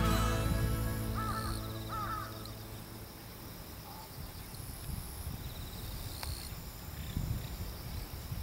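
Background music fading out over the first few seconds, with a crow cawing in two short bouts about one and two seconds in. After that only a faint low outdoor rumble remains.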